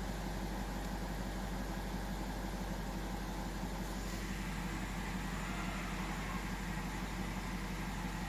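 BMW X5 4.8-litre petrol V8 idling steadily at an even, unchanging speed.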